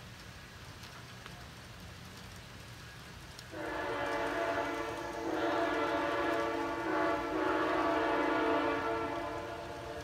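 Nathan Airchime K3HA three-chime locomotive air horn sounding one long chord that starts a few seconds in, dips briefly twice and cuts off near the end.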